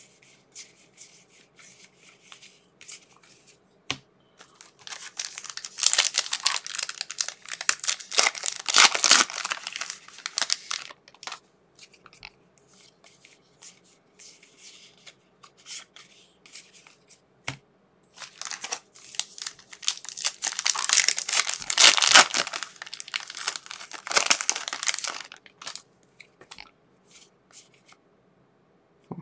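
Foil trading card pack wrappers being torn open and crinkled by hand. There are two long bouts of crackling, one about five seconds in and another past the middle, with light handling ticks between them.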